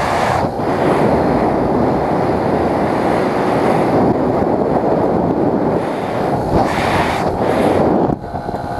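Heavy wind buffeting the camera microphone of a scooter riding along at speed, with the scooter running underneath. The wind eases briefly near the end.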